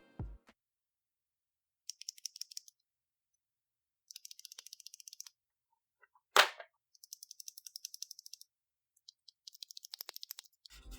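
Four short bursts of rapid, light clicking and rattling from small hard objects, with one sharp, loud knock a little past the middle.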